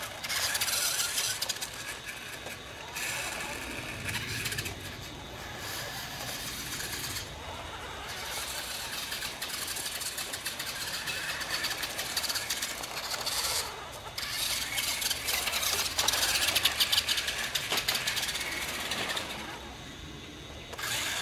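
Small toy radio-controlled trucks running over grass and patio stone: the high-pitched whir and gear chatter of their motors, rising and easing off as they speed up and slow, dropping away briefly a few times.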